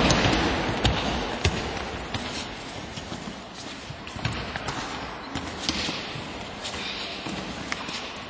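Football kicks and thuds of the ball against the wall and floor of an echoing sports hall, irregular sharp impacts every second or so, over a hall-wide noise of play that is loud at first and dies down over the first few seconds.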